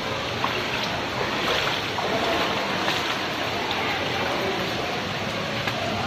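Tukad Cepung waterfall's spray falling and splashing onto rock and a shallow stream: a steady wash of falling-water noise with faint scattered drips.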